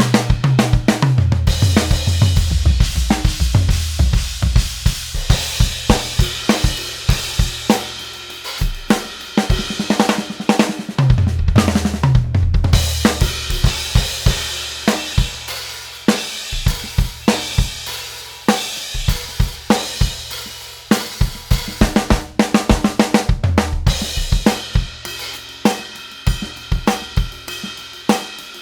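Drum kit with Meinl Byzance cymbals played as a steady groove, with crash cymbals and hi-hat washing over snare and bass drum. Tom fills step down in pitch around the kit near the start, about eleven seconds in, and again about twenty-three seconds in.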